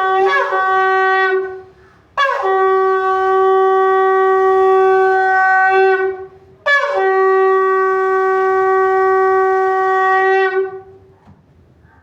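Shofar sounding long, steady blasts, each opening with a quick upward swoop in pitch. One blast ends about a second and a half in, then two more follow, each held for about four seconds.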